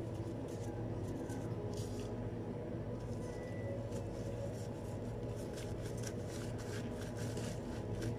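Steady low machine hum of kitchen equipment, with scattered light rustles and taps from gloved hands handling food on a cutting board.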